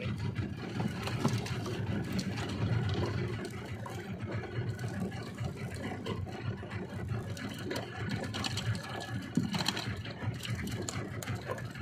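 Small fishing boat's engine running steadily, with the whirring of a spinning reel being wound in. A quick run of sharp clicks near the end.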